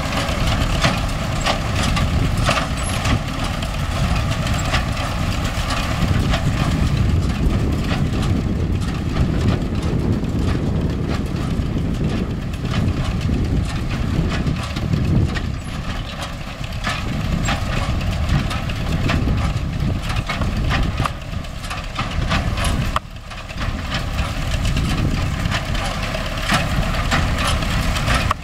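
MTZ-5 tractor's diesel engine running steadily, driving a hay baler, with a constant clatter of small knocks over the engine noise. The level drops briefly near the end, then picks up again.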